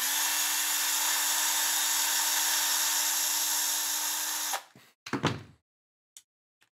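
Bosch cordless electric screwdriver running at a steady speed for about four and a half seconds, driving a fastener into a black plastic RC car body mount, then stopping abruptly; a few sharp clicks follow just after it stops.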